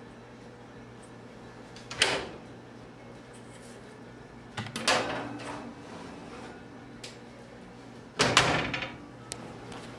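Door of a countertop electric oven and a metal tube cake pan being handled: three separate bursts of clunks and clatter, about two, five and eight seconds in, the last the longest, over a low steady hum.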